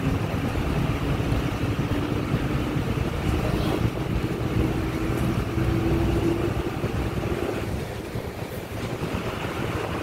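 Engine and road noise of a moving vehicle, with wind rumbling on the microphone. A faint engine hum rises slowly in pitch over the first six seconds or so, and the noise eases a little near the end.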